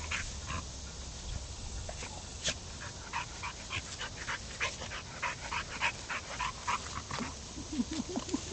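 Pit bull sniffing through the grass in short, quick sniffs, then panting in fast, short breaths near the end.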